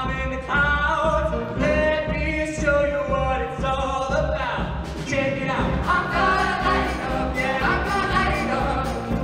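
Show choir singing with its live band: many voices hold long notes that change pitch, over a steady beat in the bass.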